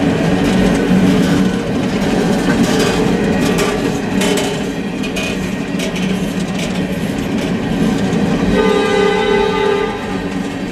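Freight cars rolling past: a steady rumble of steel wheels on rail, with clicks and clacks as they cross the rail joints. A train horn sounds for about a second and a half near the end.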